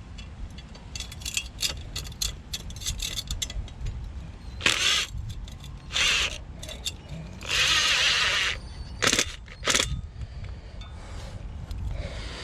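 Hand-tool and hardware work: a run of quick clicks and rattles, then four short hissing, whirring bursts, the longest lasting about a second.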